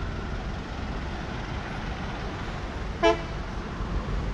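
Road traffic rumbling steadily, with one short vehicle horn toot about three seconds in.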